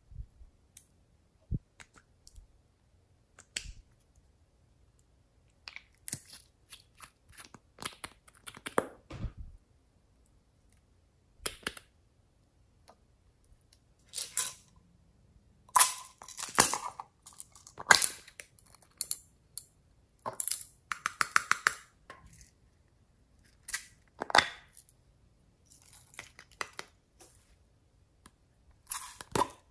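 Sparse clicks and short crackling, sticky bursts of hands working glossy slime and handling small plastic slime containers, with pauses between.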